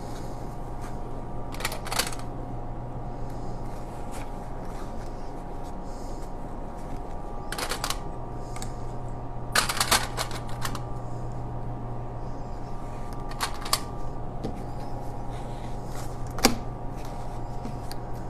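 Plastic sewing clips snapping onto stiff fabric: about five sharp clicks spread out, a couple of them in quick clusters, over a steady hum.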